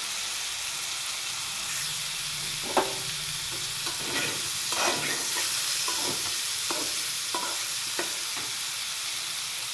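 Boiled jackfruit pieces sizzling steadily in hot mustard oil in a metal kadhai. From about three seconds in, a spoon scrapes and knocks against the pan as the pieces are stirred, with a sharp clink near the start of the stirring.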